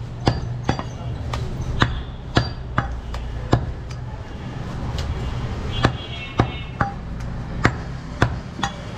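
Meat cleavers chopping on wooden butcher's blocks: a string of sharp, irregular knocks, about one or two a second, over a steady low background hum.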